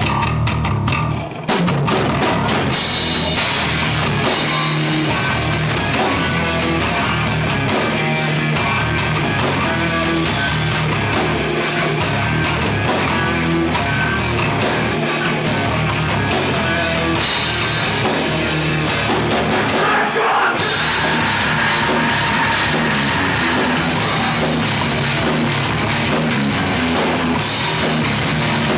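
Live hard rock band playing loud, with electric guitars, bass guitar and drum kit. There is a short break about a second and a half in, then the full band comes back in.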